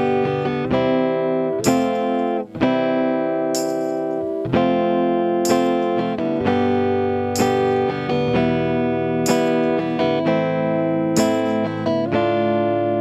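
Guitar playing a song's chord accompaniment as an instrumental with no vocals. A strong chord is struck about every two seconds, with notes ringing on between the strikes.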